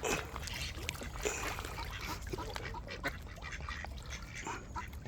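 Ducks and Canada geese calling around someone feeding them: many short quacks and honks, scattered and overlapping.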